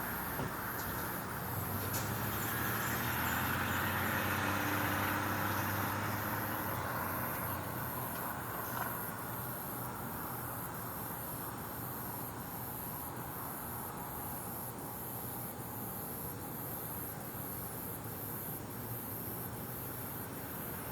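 A vehicle engine passing, a low hum that swells over the first few seconds and fades away, over steady high-pitched insect chirping that pulses evenly throughout.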